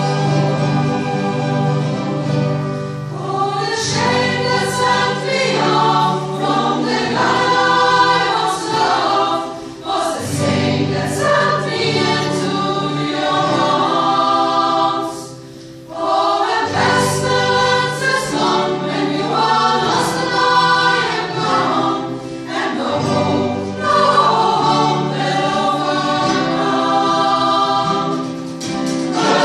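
A choir singing in long held chords, with a brief pause between phrases about halfway through.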